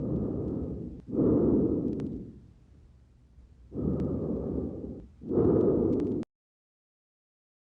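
Lung breath sounds heard through a stethoscope on the back of the chest. Two full breaths, each a softer rush followed by a louder one, the sound low and muffled. The sound cuts off abruptly about six seconds in.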